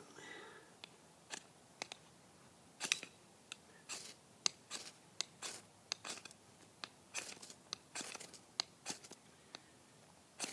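A ferrocerium rod struck again and again with a high-carbon steel knife: a string of short, irregularly spaced scrapes, each throwing sparks.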